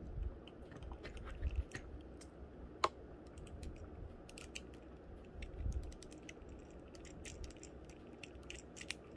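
Faint small clicks and light rubbing from the plastic joints of an S.H. Figuarts Kamen Rider Slash action figure as its arm is moved by hand, with one sharper click about three seconds in and low bumps from handling.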